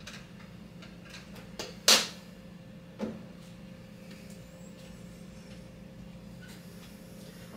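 A large plastic water jug set down on a wooden nightstand with a sharp knock about two seconds in, with lighter knocks just before and about a second after, over a steady low hum of the room's air unit.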